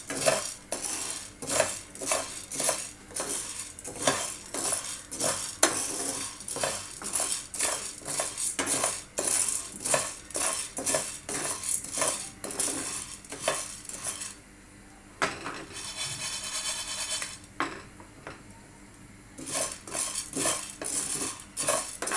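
A plastic spoon stirs dry sago pearls (sabudana) as they roast in a frying pan. Each stroke scrapes and rattles the pearls against the pan, about one or two strokes a second. The stirring stops briefly twice about two-thirds of the way through.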